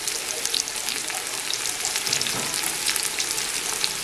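Freshly sliced onions frying in hot mustard oil with whole spices in a large aluminium pot: a steady sizzle full of small crackles, stirred with a metal slotted spoon. This is the start of sautéing the onions for masala rice.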